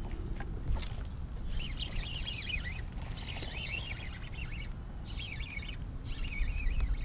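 Birds calling in three bursts of quick, high chirping notes, over a steady low rumble of wind.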